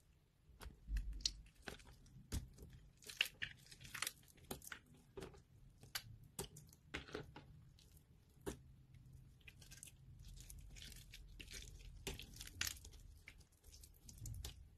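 Water-soaked bars of soft soap being squeezed, torn apart and crumbled by hand, giving irregular crunching and tearing crackles.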